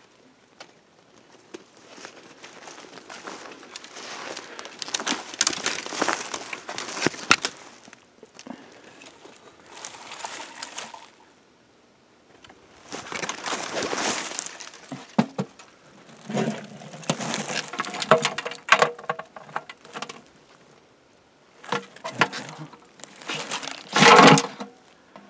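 Footsteps crunching and rustling through dry leaves and debris in irregular bursts, with short pauses, and a louder clatter near the end.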